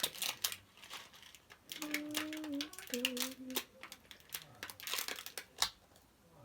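Crinkling and crackling handling noises as slime and small plastic star decorations are worked by hand, with a voice humming two held notes in the middle.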